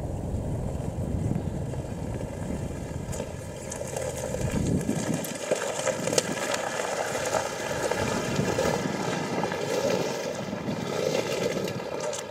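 Wind rumbling on the microphone over the steady drone of an engine running. The wind rumble drops away about five seconds in, leaving the engine drone with a few light clicks.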